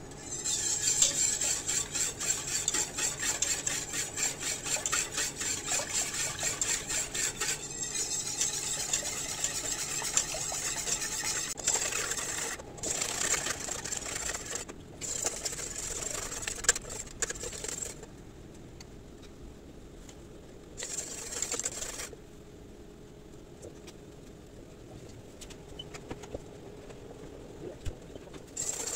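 Wire whisk beating liquid cream in a stainless steel pot, in rapid, rhythmic strokes. The whisking stops about two-thirds of the way through, comes back for one short burst, pauses again and starts once more near the end.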